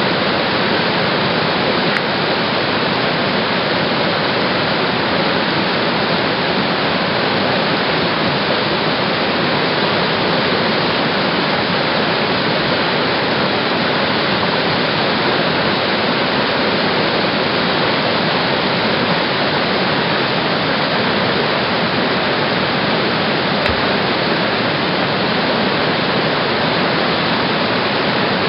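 Steady, loud rush of whitewater from a big standing wave in a tidal rapid, the water pouring and breaking without pause.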